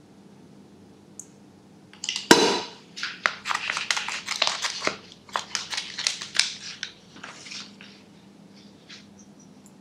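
A loud sharp knock about two seconds in, then a rapid run of cracks, clicks and crunches of hard objects for about five seconds, trailing off over a low steady hum.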